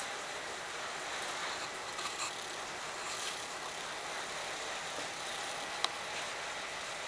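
Steady hiss with a few faint clicks, the sharpest one near the end.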